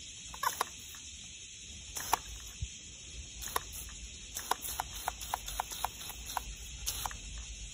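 A dog chewing a squeaky toy, giving short high squeaks, a few at first and then a quick irregular run of about three a second, over a steady high hiss.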